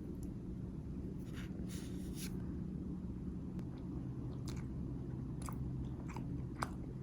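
Soft handling noises over a steady low hum: brief rustles in the first couple of seconds, then scattered light clicks and taps.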